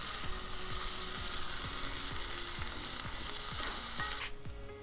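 Diced bell pepper and chilies frying in a cast-iron skillet, sizzling steadily while a spatula stirs them. The sizzle falls away sharply about four seconds in.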